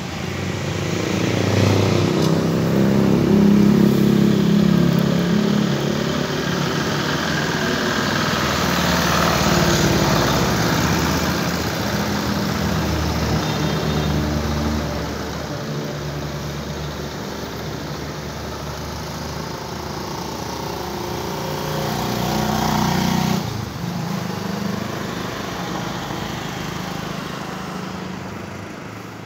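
A motor engine running nearby, its sound wavering and rising and falling, with a sudden drop about 23 seconds in.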